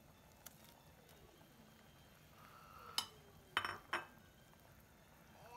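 A cooking spoon clinks and knocks against a pot and a ceramic plate as vegetables are added to a creamy sauce and stirred. There is a faint clink about half a second in, then three sharp clinks between three and four seconds in.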